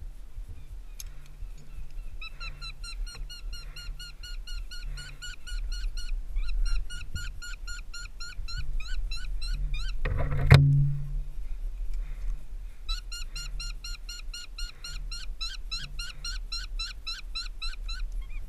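Downy hawk nestling in its stick nest giving long runs of shrill, repeated calls, about four or five notes a second, broken by short pauses. A single sharp knock sounds about halfway through.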